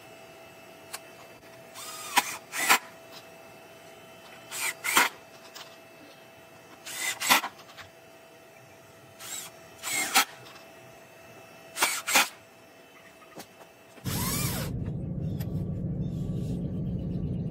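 Cordless drill driving screws through a steel angle bracket into a wooden board: about ten short bursts of the motor, mostly in pairs, two to three seconds apart. After about 14 s the bursts give way to a steady low rumble.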